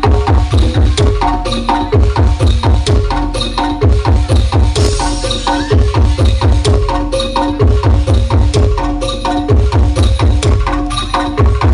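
Loud DJ remix music played through a large horeg parade sound system: a heavy bass beat pulsing steadily under a quick, repeating melody of short notes.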